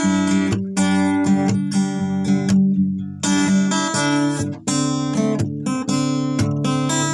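Acoustic guitar music, strummed and plucked chords in a steady rhythm.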